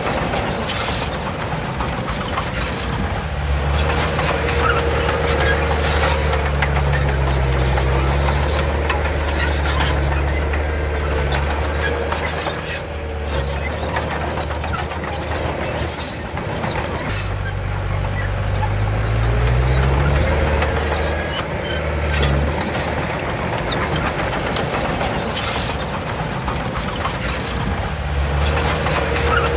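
Komatsu D31 bulldozer's diesel engine working, its pitch rising and falling as it takes and sheds load, with a high squeal that comes and goes several times.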